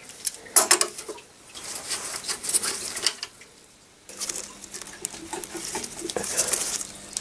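Metal tool clinks and scrapes: a Knipex pliers wrench gripping and turning a rusted nut on an old steel chassis, with a few sharp clicks of the jaws on metal near the start. About four seconds in the sound changes to more scraping over a faint steady hum.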